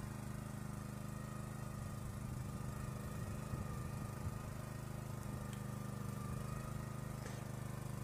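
Walk-behind tractor's small engine running steadily under load, pulling a spinner-type potato digger through the soil.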